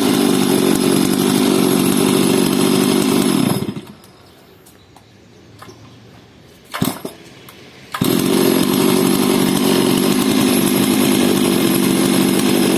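Stihl 382 two-stroke chainsaw engine running at a steady, even speed. It stops about three and a half seconds in, and two sharp knocks follow. From about eight seconds in it is running steadily again.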